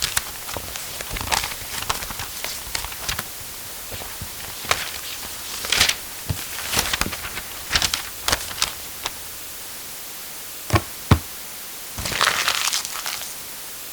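Paper and book handling: crinkly paper rustling and short crackling clicks. Two sharp knocks come about eleven seconds in, followed by a longer rustle of paper.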